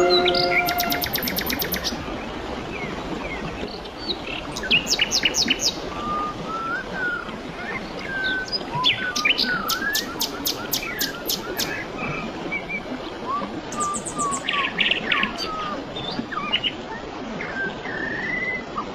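Several wild birds chirping and whistling over a steady rush of flowing water, with repeated bursts of fast trilled notes. The last note of the music dies away in the first second.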